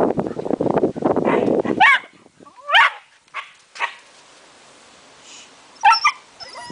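Scottish terrier growling roughly for the first two seconds of play, then giving short, high, sharp yips: two close together about two seconds in, two fainter ones near four seconds, and another near the end.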